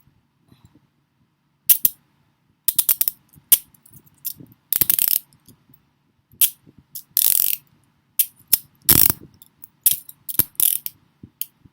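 Smith & Wesson Model 90 steel handcuffs being worked by hand: the cuff arm ratcheting through its pawl in short runs of rapid clicks, with single clicks and metal clinks between, in irregular bursts that start about two seconds in.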